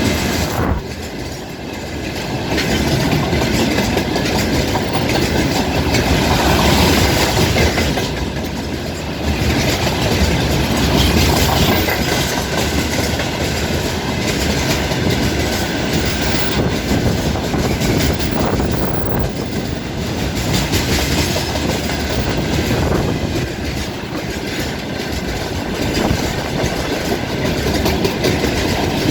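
Loaded tank cars of a long freight train rolling past at speed, wheels clattering steadily over the rail joints with a dense rhythmic clickety-clack.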